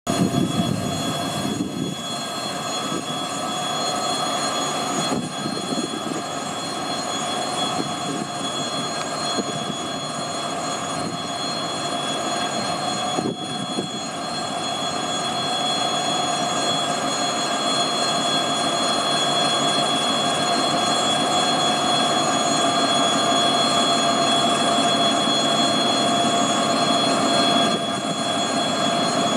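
2M62 twin-section diesel locomotive running as it rolls slowly past, its two-stroke 14D40 diesel engines sounding steadily with a steady high whine over them. It grows gradually louder as the locomotive comes near.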